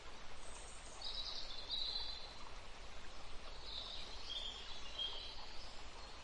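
Birds chirping in two short bouts over a steady background hiss.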